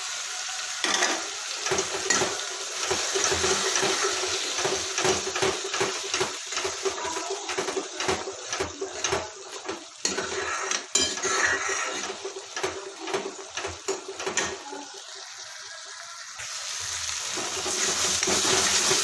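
Steel spoon clinking and scraping against a kadai as a masala paste is stirred and fried, over a sizzle. The clinks stop about fifteen seconds in, and the sizzle grows louder toward the end.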